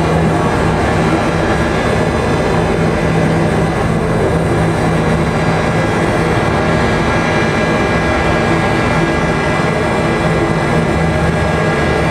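Experimental drone music: a loud, dense wash of noise over a steady low hum, unchanging throughout.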